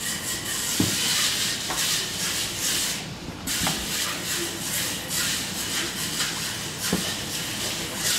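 A knife trimming the side of a yellowfin tuna loin in quick scraping strokes, with a few light knocks on a plastic cutting board, over a steady hiss.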